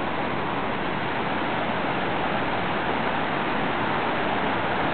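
Rushing water of a fast stream cascading over rocks: a steady, even rush.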